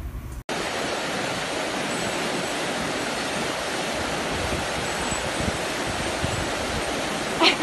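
A steady rushing noise that starts abruptly about half a second in, followed by a brief voice-like call at the very end.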